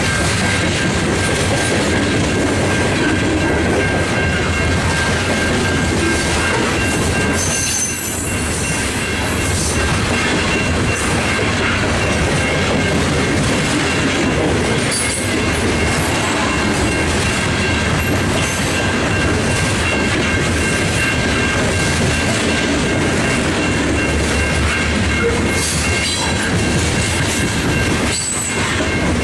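Coal hopper cars of a freight train rolling past, with the steady rumble and clatter of steel wheels on the rails. A few steady high-pitched tones run over it throughout.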